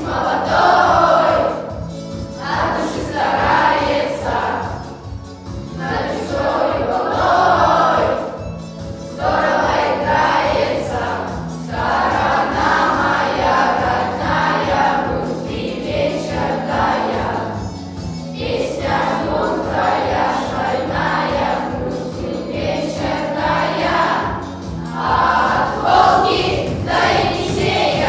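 A children's class choir singing a song in Russian in unison phrases, over instrumental accompaniment with a steady bass line.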